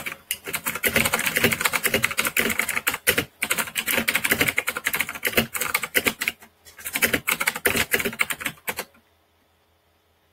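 Fast touch typing on a mechanical keyboard at about 74 words a minute: a dense, rapid run of key clicks with a brief pause about two-thirds through. The typing stops shortly before the end.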